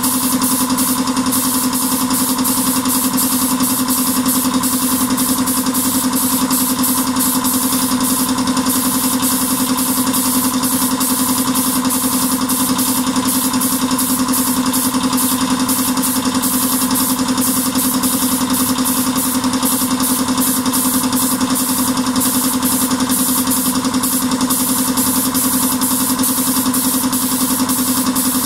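Steady drone of a running motor: a constant hum with hiss above it, without a break, in a paint booth where an air spray gun is laying on clear topcoat.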